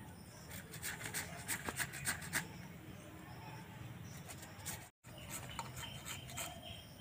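Papaya being grated on a handheld metal grater into a steel plate: a run of quick rasping strokes in the first couple of seconds, then softer strokes. The sound drops out for an instant about five seconds in.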